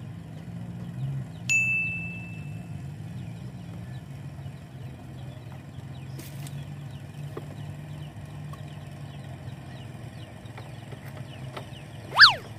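A steady low motor drone, with a single bell-like ding about a second and a half in that rings for about a second. Near the end comes a short, loud swooping squeal.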